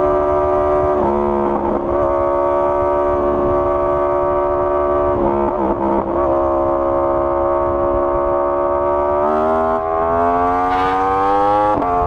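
Yamaha R1's inline-four engine through an Akrapovic full exhaust system, holding a steady engine speed while ridden, with two brief breaks in the note. About three quarters of the way in it revs up steadily as the bike accelerates, then drops off at the very end.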